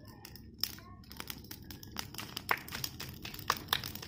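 Bonfire of green leafy vines and branches crackling, with irregular sharp pops and snaps that come more often in the second half.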